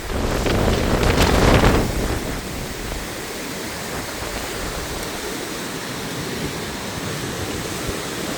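Storm wind gusting against the microphone with a low rumble for about two seconds, then settling into a steady rushing hiss.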